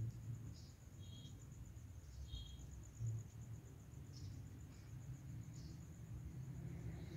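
Insect trilling, a continuous high, rapidly pulsing note, with two short chirps about one and two and a half seconds in.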